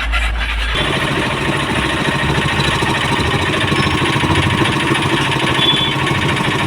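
Hero Splendor's small single-cylinder motorcycle engine running steadily. The mechanic says the bike has a clutch problem and no pickup at all.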